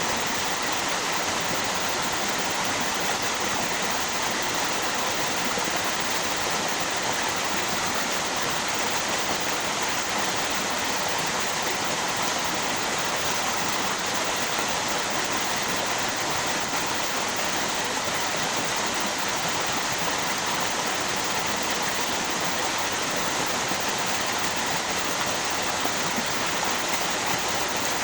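Flowing river water rushing steadily, an even, unbroken hiss with no change.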